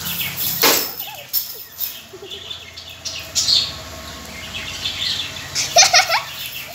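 Two dogs play-fighting on a concrete floor: claws scrabbling and bodies scuffling, with a quick run of short high squeaks near the end.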